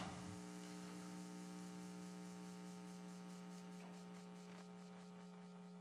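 Faint steady electrical hum with a row of even overtones, typical of mains hum in a recording.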